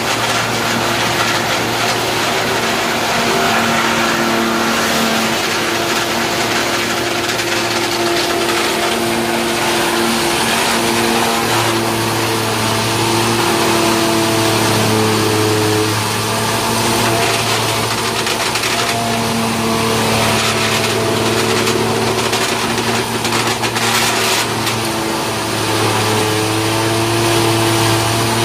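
Belt-driven wood sawdust machine running on an electric motor and grinding wood fed into its hopper into sawdust: a loud, steady hum over a dense grinding hiss. The hum shifts a little in pitch and dips in loudness a few times as the load changes.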